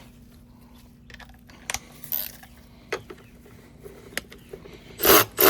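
Hand tools working on a car's battery fastenings: scattered light metallic clicks and taps, then two loud, harsh noisy bursts about five seconds in, the second one longer.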